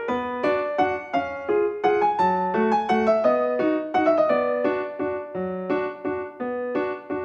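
Solo piano music: a quick, evenly paced run of struck notes over lower bass notes.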